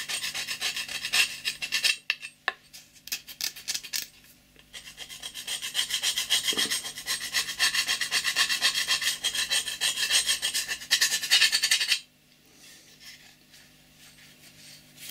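Quick back-and-forth scraping on the yellowed steel face of an axe head after a rust-removal soak, rubbing off the surface residue. The strokes thin out about two seconds in, pick up again as a steady run, and stop about twelve seconds in.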